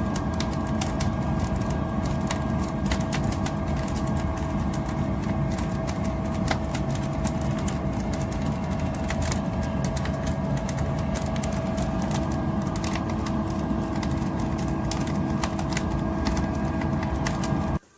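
Mini wood-fired pottery kiln firing: a steady rumbling roar of the fire, with a constant hum and frequent sharp crackles and pops from the burning wood. It cuts off abruptly near the end.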